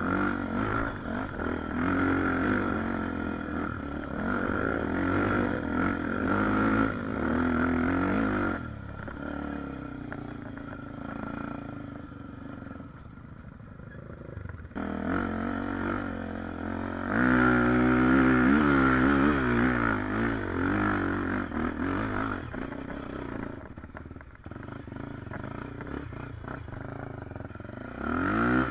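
Honda XR250 Tornado trail bike's single-cylinder four-stroke engine, bored out with a 280 cc kit and fitted with an aftermarket ProTork Powercore exhaust, revving up and down under load. It drops to a low, steady run for several seconds about a third of the way in, then revs hard again a little past halfway.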